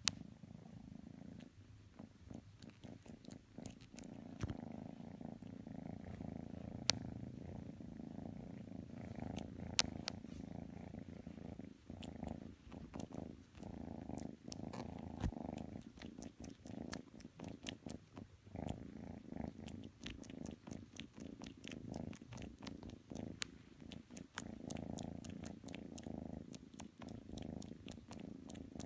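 Grey kitten purring continuously and close up, the purr swelling and easing with its breathing, with a few faint sharp clicks over it.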